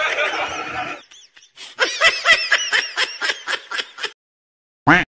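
A man laughing hard in a quick run of 'ha-ha' bursts, several a second, after a second of voice at the start.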